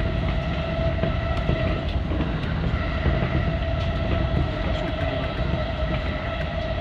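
Keihin-Tohoku line electric commuter train running at steady speed, heard from inside the driver's cab: a steady rumble of wheels on rail with a constant whine held at one pitch and a few faint clicks.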